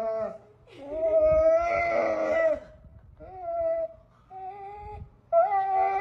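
Dog 'talking': a run of about five drawn-out, whining yowls with short gaps between them, the second the longest at about two seconds.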